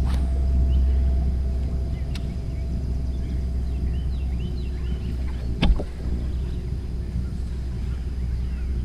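Bass boat's bow-mounted trolling motor running: a steady low hum, with a few sharp knocks on the boat and birds chirping in the background.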